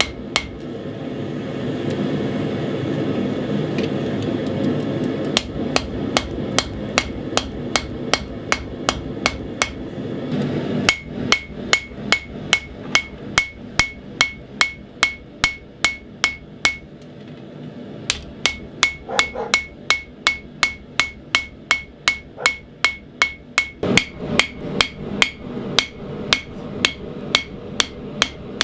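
Hand hammer forging a steel knife blade on an anvil: steady blows about three a second, in runs with short pauses. From about eleven seconds in, each blow rings with a thin, high anvil tone. A steady rushing noise lies under the blows in the first part.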